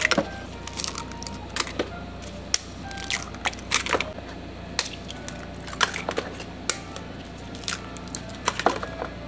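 Eggs cracked open by hand one after another, their shells dropped into a plastic tub: a string of sharp, irregular cracks and clicks, one or two a second.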